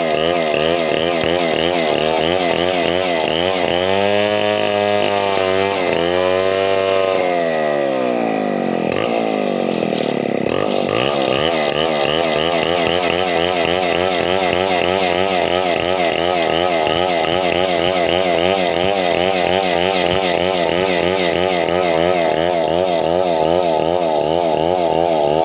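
Two-stroke chainsaw running hard, its engine note wavering rapidly as the chain works through wood. The engine pitch sags about seven seconds in, then climbs back and runs on steadily.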